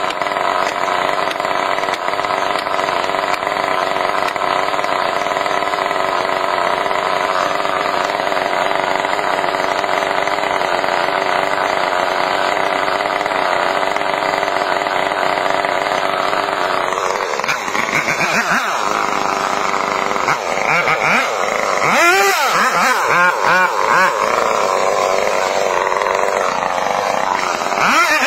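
Large chainsaw idling steadily, then revved up and down repeatedly for the last ten seconds or so as it is brought into the cut in a huge tree trunk.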